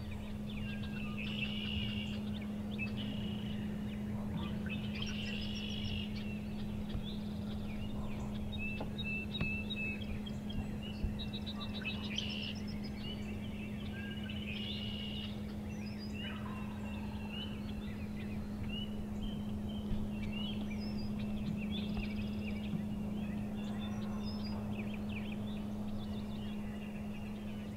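Wild turkey tom gobbling amid many short songbird chirps, over a steady low hum.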